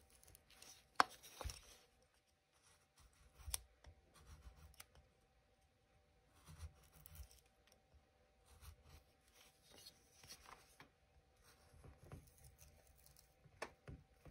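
Hand carving tool cutting into basswood: faint, intermittent slicing and scraping strokes as creases are pared into the figure, with one sharper click about a second in.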